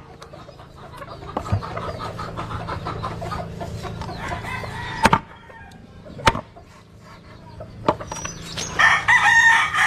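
A long knife chopping through a whole tuna on a cutting board: three heavy chops a second or so apart. Chickens cluck around it, and a rooster crows loudly near the end.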